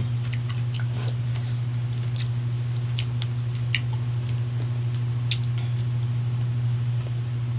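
Chewing and eating noises from someone eating roast chicken with their fingers: scattered small wet clicks and smacks, over a steady low hum.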